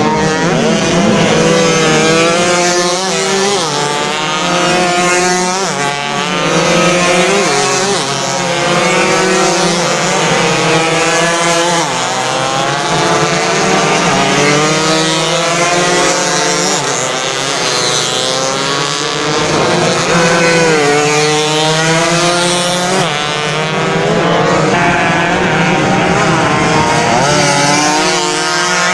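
Several two-stroke 120cc underbone race motorcycles racing at full throttle. Their overlapping engine notes rise and fall again and again as they rev through the gears and brake for the corners.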